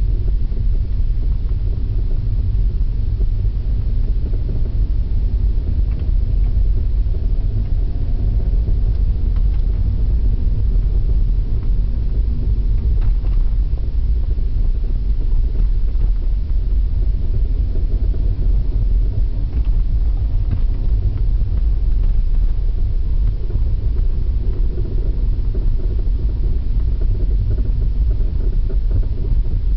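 2001 Audi A6 on the move: a steady low rumble with a faint wavering whine over it, the unexplained noise the owner hears from the front right wheel.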